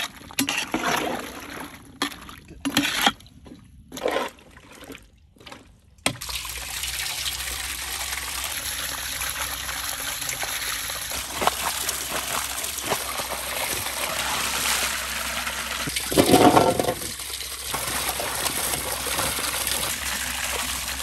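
Water splashing steadily as hands rub and rinse tomatoes, then small eggplants, in a water-filled aluminium basin, with one louder splash about two-thirds of the way through. Before that, in the first six seconds, there are only a few short separate sounds as a ladle is worked in a cooking pot.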